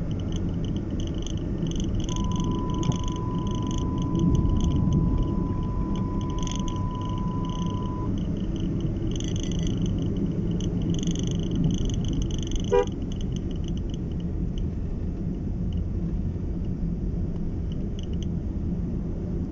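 Honda Brio hatchback driving, heard from inside the cabin: a steady low rumble of engine and road noise. High-pitched chirpy sounds come and go over it, and a steady beep-like tone sounds for about six seconds starting about two seconds in.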